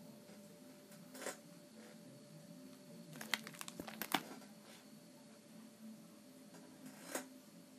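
Plastic sleeve pages of a trading-card binder being turned and handled, with a few soft crinkles and clicks and a cluster of them about three to four seconds in, over a faint steady hum.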